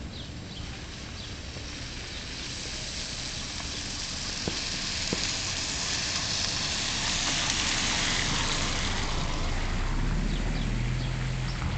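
A Chevrolet sedan passing close by on a wet, slushy street, its tyres hissing on the water; the hiss swells to a peak in the middle and then eases off. A low steady hum comes in near the end.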